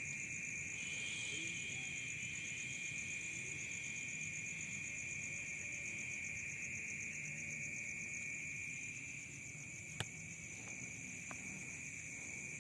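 Night chorus of crickets and other insects trilling steadily at several pitches, one of them a rapid pulsing trill high above a continuous one. A single sharp click near the end.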